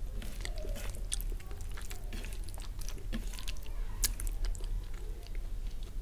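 Close-miked mouth sounds of chewing a mouthful of vegetable biryani with creamy kofta gravy: many short wet clicks and smacks. Fingers squish as they mix rice into the gravy on the plate.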